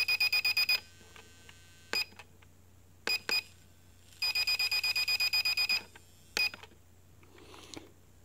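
Electronic beeping from the ProMark VR drone's controls as the camera-angle buttons are pressed. A high beep pulses about eight times a second in two runs of about a second and a half, at the start and again about four seconds in, with single short beeps between them.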